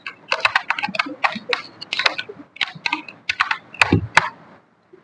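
A quick, irregular run of clicks and taps, several a second, with two heavier knocks near the end.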